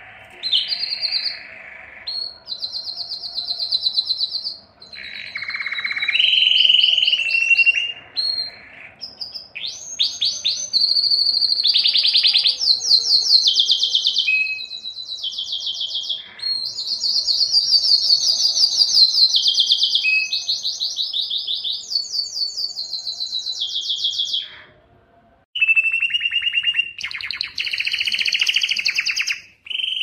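Domestic canary singing a long song of fast trills and rolls, one phrase running into the next at varying pitch, with a brief pause near the end.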